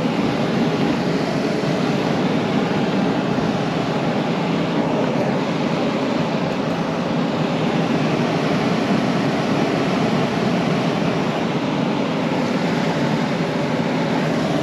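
A vacuum cleaner running steadily, a loud even rush of motor and air, used to clean out a dirty furnace blower.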